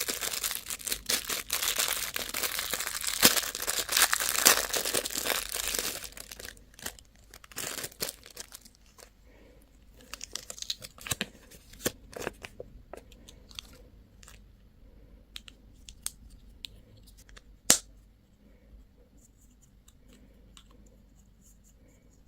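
A crinkly candy wrapper being torn open and crumpled by hand, loud and dense for about six seconds. Then only scattered small crinkles and clicks follow, with one sharp click a little before the end.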